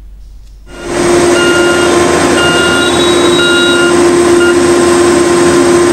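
Heavy road-construction machinery running with a steady engine hum and a reversing alarm beeping about once a second. The noise comes in abruptly just under a second in.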